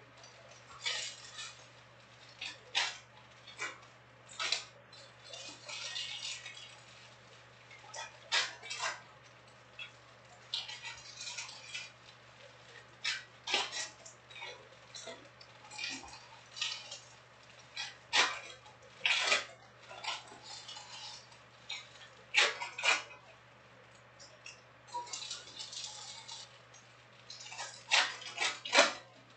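Trading cards being handled and flicked through: irregular sharp clicks and snaps as cards are slapped down and stacked, with short stretches of rustling.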